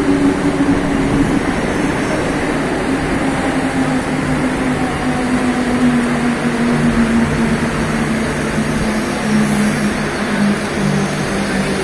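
Mumbai suburban electric local train slowing as it pulls into a station: steady rumble of wheels on rails with an electric motor hum that falls gradually in pitch.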